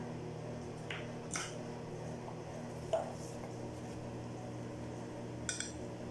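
A steady low hum with a few light clicks and clinks of kitchenware, a few of them close together near the end.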